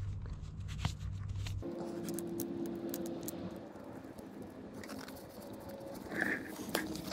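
A cloth rag wiping the underside of a dirt bike's engine around the oil drain bolt: soft rubbing and scraping with a few light clicks.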